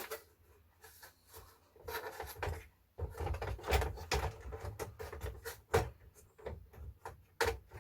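Plastic computer case parts being handled: a string of light clicks and knocks, with rubbing and a low handling rumble from about three seconds in.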